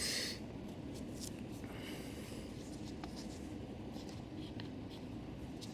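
Writing by hand: short scratchy pen strokes, the loudest right at the start, over faint steady room noise.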